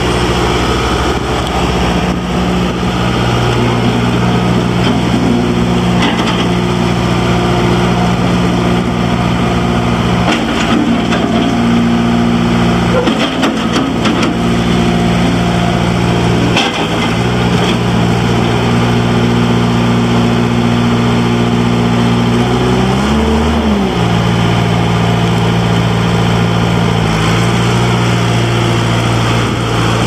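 John Deere 310D backhoe loader's four-cylinder diesel engine running steadily, its pitch sagging briefly a few times as it takes load while the loader arms lift and the machine drives. A few knocks near the middle.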